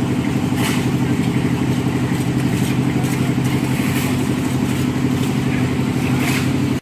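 A small engine running steadily, with scattered clatter over it; it cuts off suddenly at the end.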